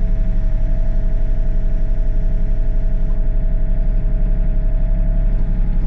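Excavator's diesel engine running steadily, with a steady whine over the low rumble, as the boom and dipper are worked.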